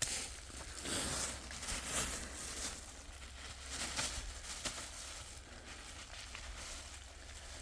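Onion being tipped into a kazan of frying meat, mushrooms and carrot, hissing and crackling in the hot fat. The hiss surges several times in the first four seconds and then settles to a steadier, quieter sizzle.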